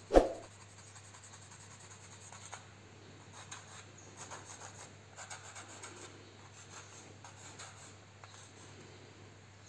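Pencil drawing on a wall: faint, short scratchy strokes of the pencil tip, coming in scattered bursts. Just after the start there is a single sharp, loud knock.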